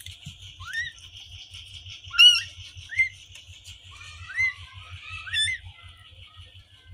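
Newborn kittens mewing: about five short, thin, high-pitched squeaks, each rising in pitch, the loudest about two seconds in.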